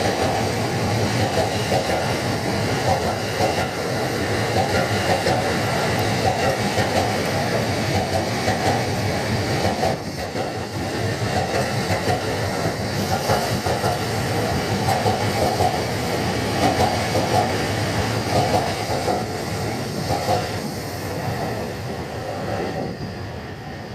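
Electric train running past close by: a steady rumble and clatter of wheels on rail that dies away over the last few seconds.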